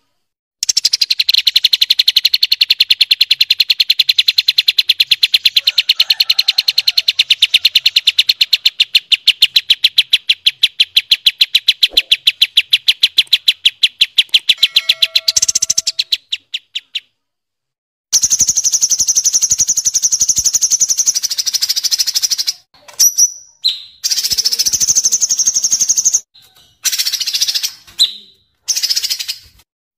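Songbird master recording of kapas tembak and cucak cungkok birds. A long, rapid, evenly repeated trill runs for about fifteen seconds and stops. After a short silence a higher, steadier trill follows, broken off abruptly several times.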